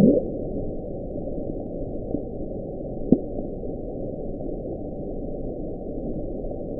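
Underwater hydrophone recording of the 1997 'Bloop', heard as a low, steady noisy rumble with nothing above the low range. It swells briefly at the start and has a sharp click about three seconds in. NOAA attributes the sound to icebergs cracking and fracturing.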